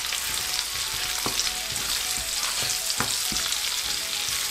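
Crushed garlic, ginger, cumin and dried fenugreek seeds sizzling in hot ghee in a pan for a tadka, with a steady hiss. A spoon stirring the mix clicks against the pan a few times.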